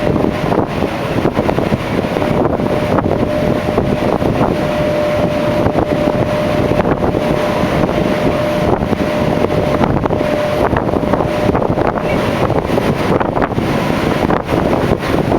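Strong wind blowing across the microphone on a ship's open deck: a loud, steady rush with gusty buffeting. A faint steady hum runs underneath and fades out near the end.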